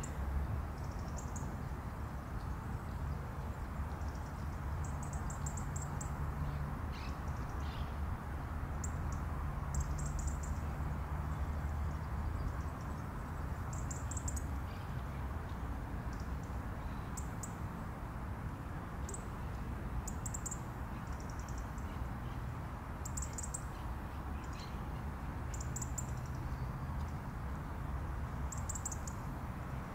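Small bird's high, thin call notes in short rapid clusters, repeating every second or two, over a steady low background rumble.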